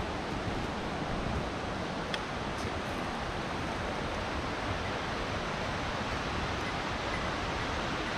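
Steady rushing of a river.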